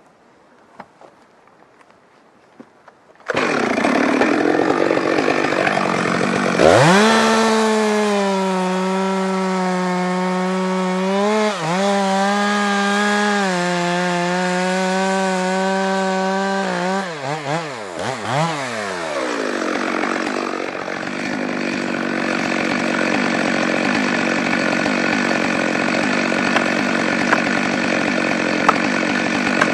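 Stihl MS 462 two-stroke chainsaw comes in abruptly about three seconds in, revs up and cuts through a spruce trunk at full throttle with a steady high engine note, briefly dipping under load. Around two-thirds through the revs waver and fall off, and the saw runs on at a lower, steadier note; near the end a few sharp knocks come from a felling wedge being driven in with an axe.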